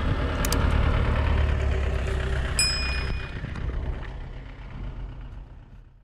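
Steady low rumble of road and engine noise inside a moving car, fading out toward the end. Clicks sound about half a second in, and a single bright bell-like ding comes about two and a half seconds in, from the subscribe-button animation.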